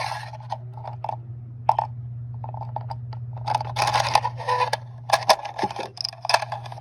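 Scraping and clicking of a 30-round AR-15 magazine spring and follower being worked down into the magazine body by hand, in irregular bursts over a steady low hum.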